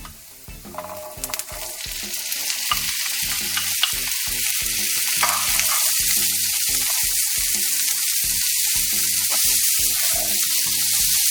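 Cooked chickpeas frying in hot oil with chopped garlic, being stirred in the pan; the sizzle builds over the first two seconds and then holds steady, with a few light clicks.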